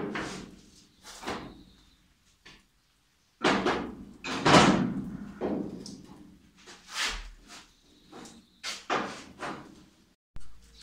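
Irregular metallic clunks and knocks as steel clamps and parts are handled and set against a Ford Mustang's bare steel body shell during test-fitting. There is a short dead-silent break about two seconds in.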